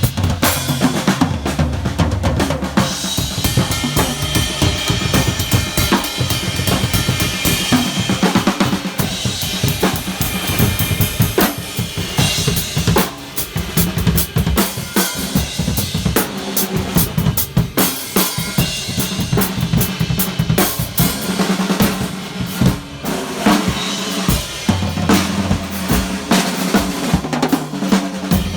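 Drum battle between two drum kits: fast, dense strokes on snare, bass drum, rims and cymbals, with no let-up.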